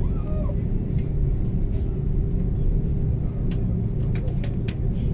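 Cabin noise inside a taxiing Airbus A330-300: a steady low rumble from the engines and the rolling airframe, with a steady hum and a few light clicks in the second half.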